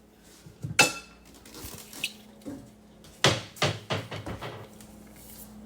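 Hard household objects being handled. There is a sharp clink with a short ring about a second in, then a quick run of three or four knocks and clatters about three to four seconds in.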